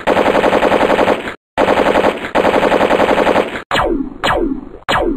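Sound-effect machine-gun fire: two long, rapid bursts with a short break between them. From about three and a half seconds in come four single shots, each trailing off in a quick falling whine.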